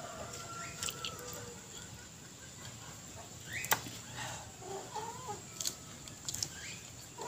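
Chickens clucking now and then, with a few sharp mouth clicks of eating; the loudest click comes about halfway through.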